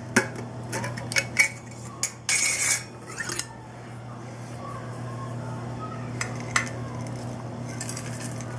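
Kitchen utensils and a measuring cup clinking against dishes: several sharp clinks in the first two seconds, a brief scraping noise about two and a half seconds in, and one more clink about six and a half seconds in, over a steady low hum.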